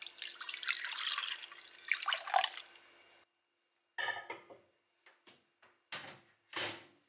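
Milk poured from a jug into a glass bowl of mochi cubes, a splashing, trickling pour that tails off about three seconds in. After a short silence come several short sharp clicks and knocks.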